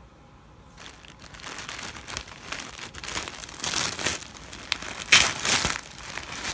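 Packaging wrapping being pulled off a new lacrosse stick head by hand. The rustling starts about a second in, comes in irregular surges and is loudest near the end.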